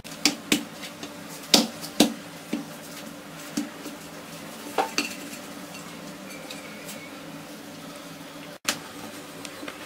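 Stainless steel plate clinking and knocking as dough is kneaded and pressed by hand on it, with several sharp clinks in the first five seconds and one more near the end, over a faint steady hum.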